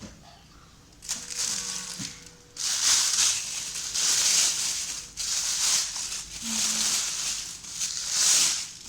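Packaging being unwrapped and handled, crinkling and rustling in irregular loud swells that start about a second in.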